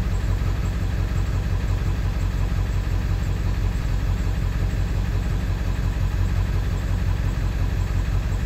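1999 Ford 7.3 L Powerstroke turbo-diesel V8 idling steadily just after being restarted from a stall. The owner complains of a rough idle with a slight miss, which he puts down to an injector that isn't firing correctly.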